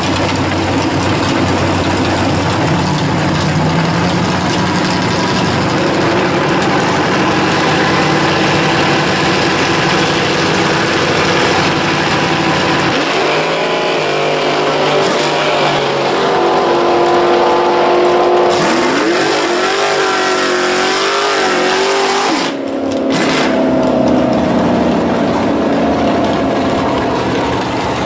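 Drag car's V8 engine running loud at the strip, its revs rising, falling and wavering through the middle of the stretch, with a dense, noisy engine sound before and after.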